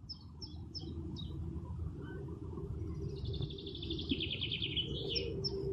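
Songbirds chirping: a quick run of short, high chirps, then a longer trill about three seconds in, then more chirps, over a low steady outdoor rumble.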